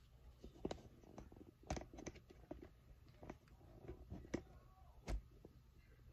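Scattered light clicks and knocks of a ring light's phone mount being handled and adjusted upward, with two louder knocks, one near two seconds in and one about five seconds in.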